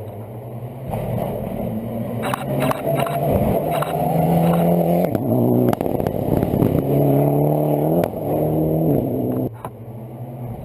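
Rally car engine under hard acceleration, rising in pitch through the gears with sudden drops at the shifts about halfway and about three-quarters through. The engine then lifts off near the end. Sharp cracks are scattered throughout.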